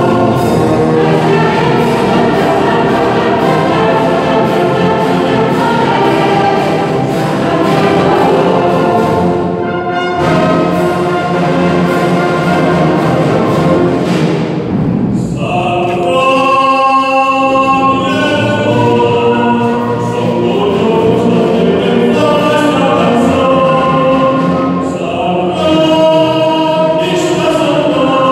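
A choir singing a pasodoble with a wind band including tubas. Around the middle the band's steady beat drops away and the choir holds long notes, and the beat returns near the end.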